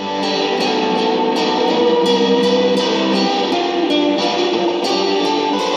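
Electric guitar picked in a steady rhythm, a run of single notes and chords.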